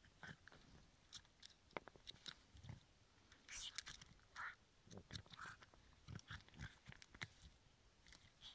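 Boston terrier biting and tearing at dry heather and brush: faint, irregular crunches, snaps and rustling of twigs.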